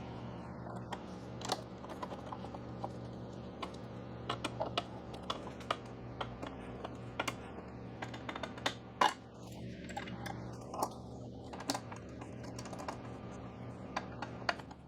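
Irregular light metallic clicks and taps of a wrench and hex key working bolts tight on a steel luggage rack mount, over a faint steady hum.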